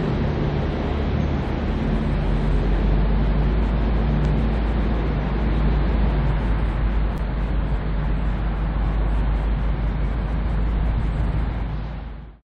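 V/Line N class diesel-electric locomotive running as it moves slowly, its EMD two-stroke diesel a steady low drone. The sound cuts off near the end.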